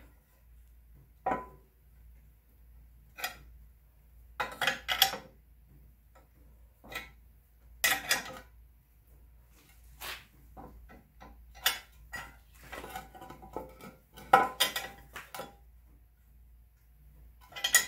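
Steel wrench clinking and clanking against a bearing puller as it is fitted and turned to draw out the front output shaft bearing of a Jeep NP231 transfer case. The metallic clicks come irregularly, about a dozen in all, a few with a brief ring.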